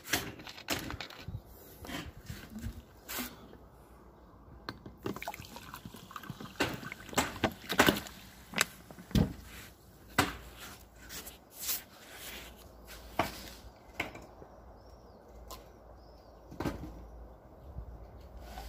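Drinking water: water poured and sipped, with scattered short clicks and knocks of a drinking vessel being handled.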